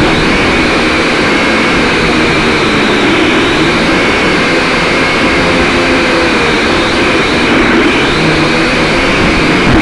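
Small quadcopter drone's propellers whirring loudly and steadily, the pitch wavering up and down as the motors change speed.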